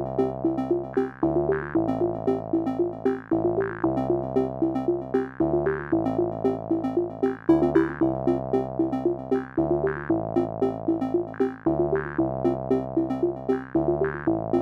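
Background music: a quick repeating pattern of notes over chords that change every second or so.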